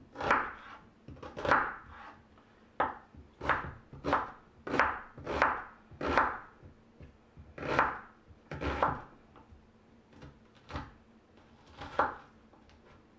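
Kitchen knife chopping an onion on a wooden cutting board: irregular knocks of the blade on the board, about one every half second, growing sparser in the last few seconds.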